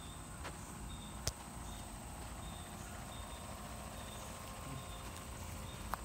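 Quiet outdoor ambience: a short, high chirp repeats evenly a little more than once a second over a low steady rumble, with one sharp click about a second in.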